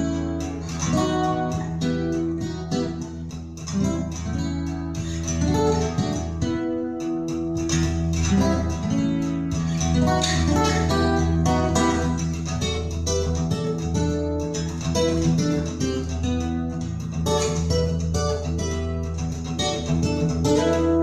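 Recorded music played through a NAD 310 stereo amplifier and Pure Sound PS204 loudspeakers: an instrumental passage of plucked and strummed guitar over steady, sustained bass notes.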